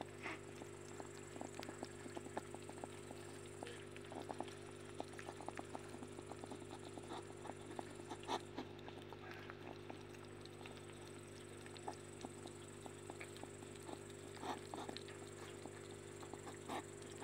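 Two hedgehogs eating from a plastic tray: a run of irregular small smacking and chewing clicks, over a faint steady low hum.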